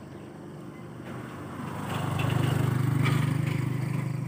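A motor vehicle drives past close by: its engine hum swells about two seconds in, holds loud for a second or so, then fades away.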